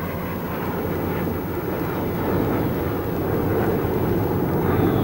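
Massed piston-engined bombers droning overhead, a dense, steady rumble. Near the end a whistle begins, slowly falling in pitch: a bomb dropping.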